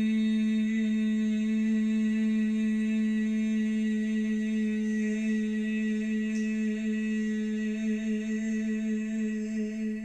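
A woman's voice holding one long, steady low note on the out-breath. It begins to waver near the end and fades away as the breath runs out.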